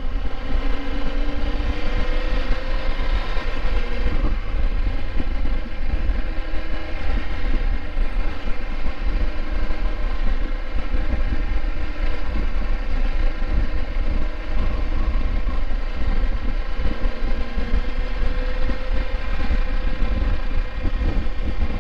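Motorcycle engine running steadily at road speed, its note rising slowly twice as the bike gathers speed, under a heavy rumble of wind on the microphone.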